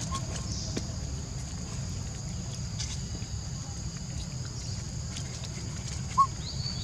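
Outdoor ambience around foraging long-tailed macaques: faint rustles and clicks over a constant low rumble and a steady high drone, with one short squeak about six seconds in.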